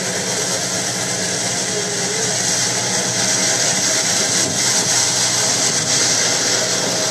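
Fireboat's engines droning steadily, under a constant rushing hiss of wind and water.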